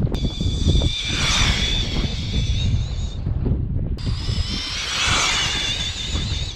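Tekno MT48.3 electric RC monster truck's brushless motor and drivetrain whining at full throttle on a 4S battery, over a steady low rumble. The whine wavers in pitch, drops out about three seconds in, and returns a second later.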